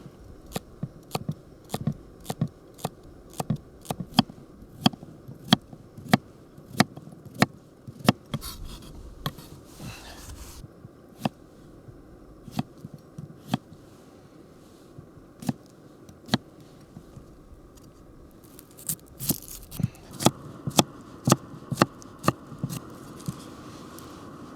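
Knife chopping vegetables on a homemade wooden cutting board: sharp knocks of the blade on the wood, about one or two a second, stopping for a few seconds midway and then starting again.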